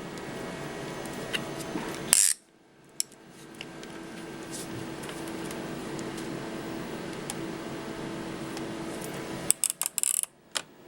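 Small plastic clicks and rattles of a cassette-type fiber optic connector cleaner (Cletop) being handled and worked as the connector end is wiped, over a steady low hum. A sharp group of clicks comes about two seconds in and a quick run of clicks near the end.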